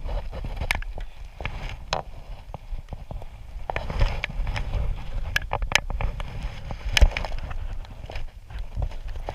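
Scattered knocks and clicks over a low rumble: handling noise from gear on a kayak, with the loudest knock about seven seconds in.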